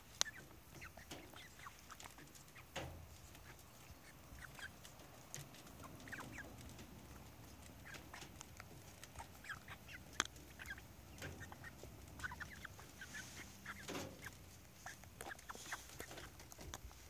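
Hens pecking cottage cheese from a bowl: scattered sharp beak taps on the bowl, with soft clucks among them.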